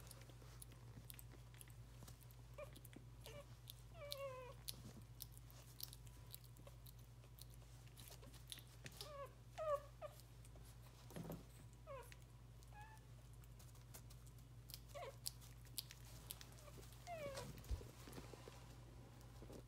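Miniature Schnauzer puppy whimpering in short, high, falling squeals, about half a dozen spread through, among faint clicks and chewing sounds at a bowl of wet puppy mash.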